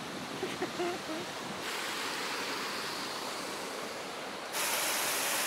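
Creek water rushing over rocks and small rapids, a steady rushing hiss that gets louder in two steps, about a second and a half in and more sharply near the end.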